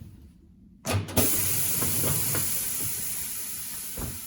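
Compressed air hissing from a Mayflower 560 tire changer's pneumatic controls as the wheel clamps are worked: a clunk about a second in, then a sudden loud hiss that slowly fades.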